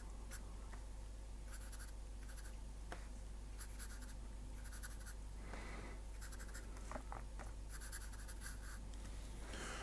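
Felt-tip marker scratching on paper in several short runs of quick strokes, faint.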